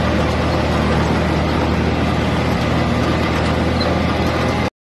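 1958 Massey Ferguson tractor engine running steadily as the tractor drives along, cutting off suddenly near the end.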